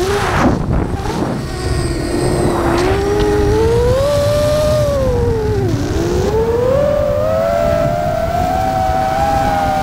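DJI FPV drone's motors whining, the pitch rising and falling with the throttle: low for the first few seconds, climbing, dipping sharply about six seconds in, then climbing again. Under it runs a steady rush of wind, with two brief whooshes in the first three seconds.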